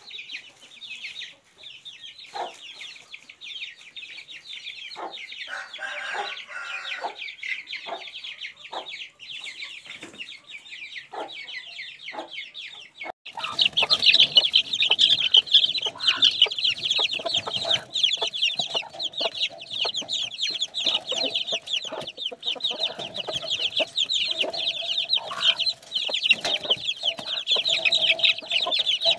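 A brood of Aseel chicks peeping continuously in a dense chorus of high chirps, with hens clucking now and then beneath it. The peeping gets suddenly louder about thirteen seconds in.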